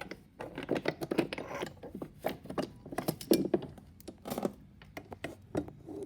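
Small metal watchmaker's lathe parts clinking and knocking together as they are rummaged through in a crate: a run of irregular sharp clicks and clatters.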